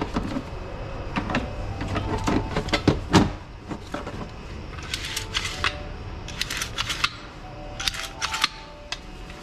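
Plastic knocks and clicks from a snowblower's recoil starter housing being handled on the bench, then three short bursts of rapid clicking and rattling in the second half.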